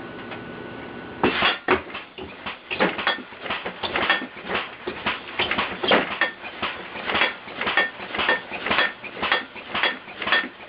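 Computer-controlled pneumatic air cylinder at the head of a bed cycling rapidly, making a fast, even run of sharp knocks, about three to four a second, starting about a second in.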